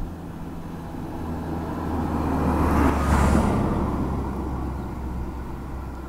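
A road vehicle passing by: its noise builds steadily, peaks about halfway through and fades away.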